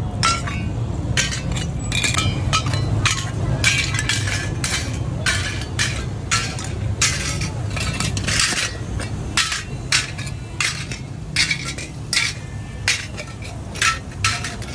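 Metal lids clinking against small metal chainaki pots and against each other as they are lifted off and stacked, many quick irregular clinks, over a steady low hum.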